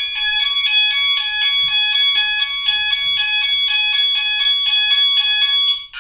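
Gent S-Quad fire alarm sounder going off after a manual call point is activated: a loud, fast-alternating two-tone alarm over a steady high tone. It cuts off suddenly near the end.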